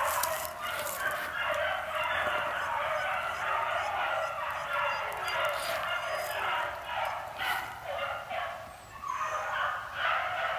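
A pack of beagles baying on a rabbit's trail, many overlapping voices running on without a break and dipping briefly near the end.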